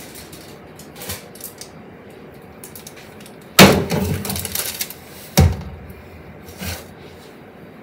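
Kitchenware being handled and set down: a sharp clack about three and a half seconds in with a short rattle after it, then two lighter knocks.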